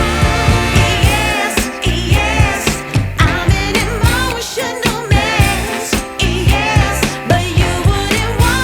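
Background pop song with a steady drum beat and a singing voice with vibrato.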